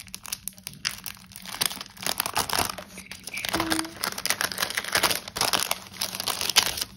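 Crinkly cellophane sleeves of planner stickers being opened and handled, a dense, irregular crackling.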